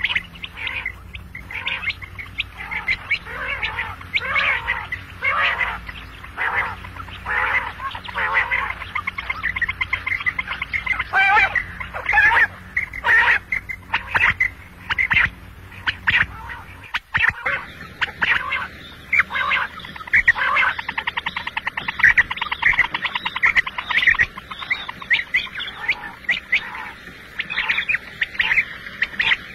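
Quail calling over and over in short repeated calls. About halfway through the calls change to a faster, rattling run.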